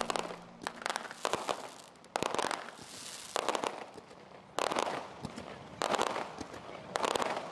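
Fireworks going off: a string of sharp bangs about a second apart, most of them followed by a short burst of crackling as the shells break.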